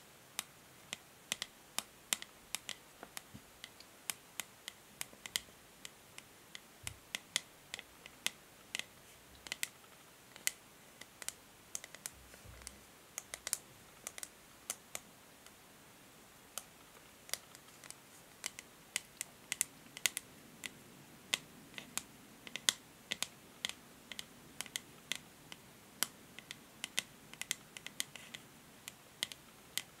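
Long natural fingernails tapping on the matte grey back of a new hair brush: light, sharp, irregular taps, a few a second, with short gaps between runs.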